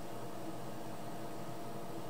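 Steady background hum and hiss of the machine shop, with a few faint constant tones and no distinct event.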